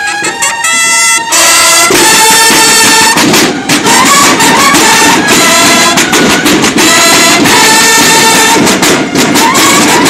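A Mexican banda de guerra of bugles and snare drums playing a march loudly: the bugles sound alone at first, and the snare drums join about a second in and play along with them.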